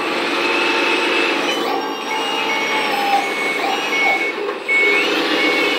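RC articulated dump truck's onboard sound unit playing a diesel engine running, with a reversing alarm beeping about once every three-quarters of a second from about two seconds in, a sign that the truck is being driven in reverse.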